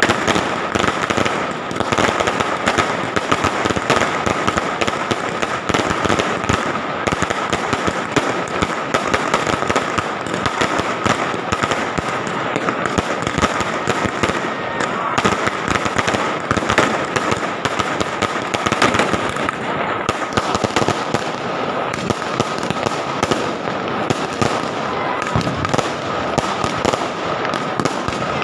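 Fireworks going off in a dense, continuous barrage of rapid cracks and pops from aerial bursts, with no let-up, and a steady high tone running underneath.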